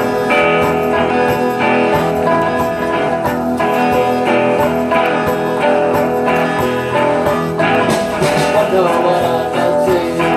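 Small string band playing live: mandolin and guitars strumming together, with a shaker keeping a steady beat.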